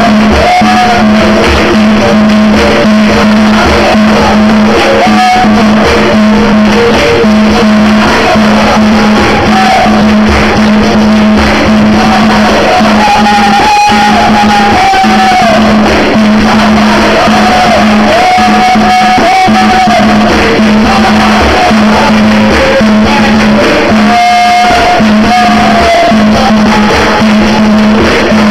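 Capoeira roda music: people singing held lines over instruments, hand-clapping and percussion strikes, recorded very loud.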